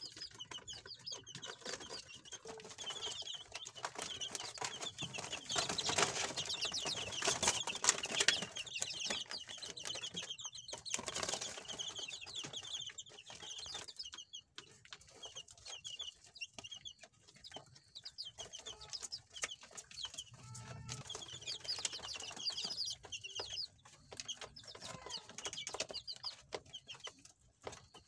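A brood of 17-day-old chicks, frizzle and regular, peeping over and over in short high chirps. A stretch of rustling and scraping comes about six to nine seconds in.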